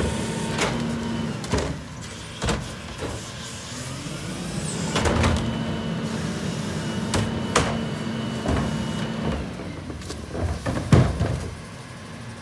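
Garbage truck's hydraulic cart tipper lifting a wheeled trash cart, dumping it into the rear hopper and lowering it, with a run of loud clunks and bangs as the cart knocks against the tipper and hopper. A steady whine, from the truck's engine running the hydraulics, holds from about five to nine seconds in.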